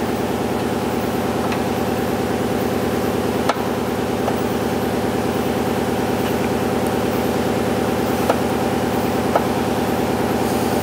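A steady, pulsing mechanical drone like an idling engine, with a few faint short clicks over it.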